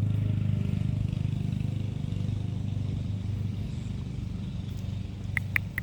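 A motor vehicle engine running at a steady low idle hum, with two short sharp clicks near the end.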